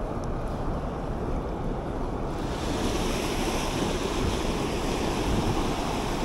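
Steady rush of whitewater river rapids. About two seconds in it becomes fuller and brighter.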